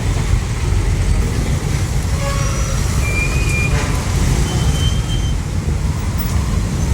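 Busy street ambience: a steady low traffic rumble from passing vehicles, with a few short high tones on top.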